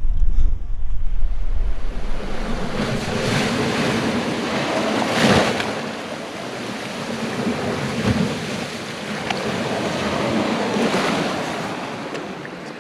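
Sea waves breaking and washing up a shingle beach in several surges, with wind buffeting the microphone for the first couple of seconds. The sound fades out near the end.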